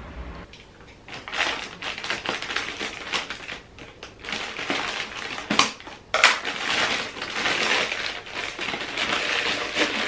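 Rustling and crinkling of paper and plastic packaging as a cardboard shoebox and its wrapping are handled, with several sharp clicks and knocks, the sharpest about six seconds in.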